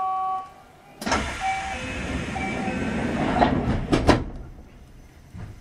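Passenger doors of a Kintetsu 5800-series train operating: about three seconds of steady hissing sliding noise, ending in two sharp knocks as the doors come to rest, with a lighter knock about a second later.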